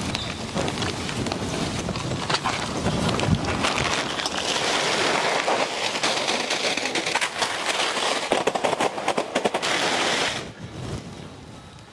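Plastic Kurkure and Maggi snack packets crinkling and rustling as a heap of them is tipped out and handled, a dense crackle that stops suddenly about ten seconds in.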